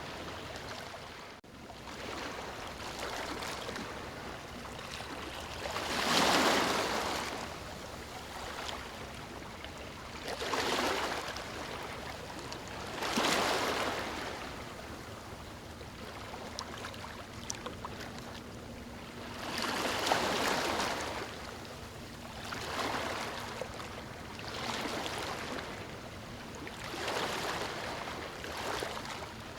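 Sea waves breaking and washing up a sandy beach: a steady hiss of surf with a louder surge every few seconds as each wave comes in and falls away.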